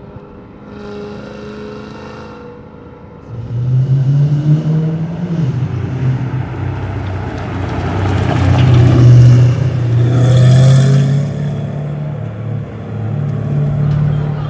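Audi RS5 4.2-litre V8 engine in an Audi A4 B8: a low hum for about three seconds, then it comes in loud, revving with its pitch rising and falling, loudest around two-thirds of the way through.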